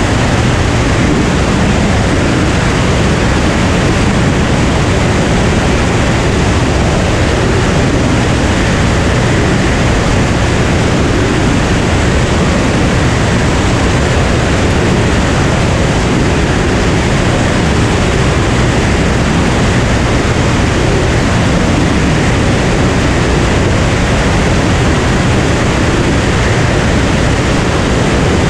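Cirrus SR22 single-engine airplane in cruise flight: a steady, loud rush of engine, propeller and airflow noise, with a low drone from the six-cylinder Continental engine underneath and no change in pitch.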